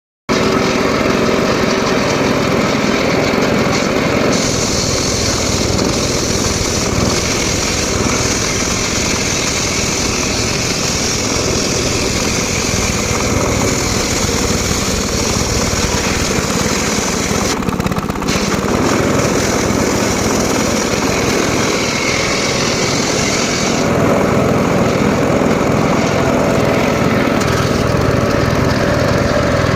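Homemade circular saw running steadily on its small engine while cutting teak logs. A high hiss of the blade in the wood comes in about four seconds in and drops away after about twenty seconds, with a short break partway through.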